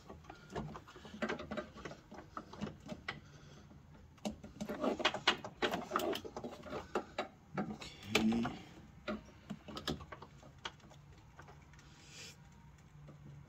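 Scattered light clicks and taps of hand work on small metal car parts: nuts and a line fitting being started by hand on a clutch master cylinder.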